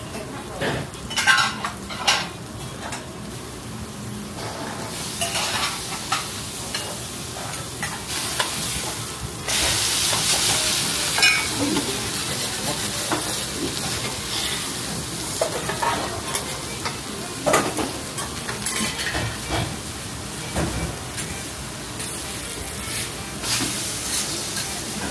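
Okonomiyaki sizzling on a hot iron teppan griddle, with a metal spatula now and then clicking and scraping on the plate. The sizzle grows louder about ten seconds in.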